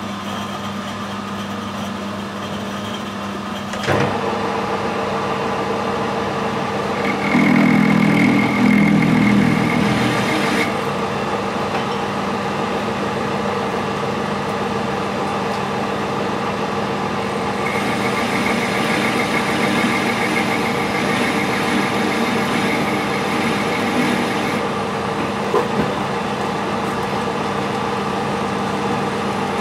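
Metal lathe running steadily, its spindle started with a click about four seconds in, after which it runs louder. In the second half a parting tool is cutting a nut off hex bar stock, adding a thin high whine.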